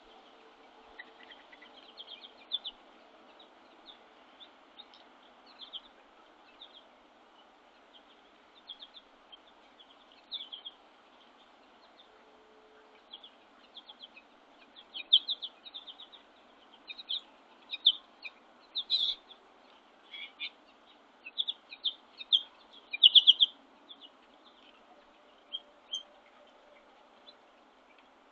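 Small birds at a winter feeder chirping with short, repeated high calls, sparse at first and busier and louder in the second half, over a faint steady background hum.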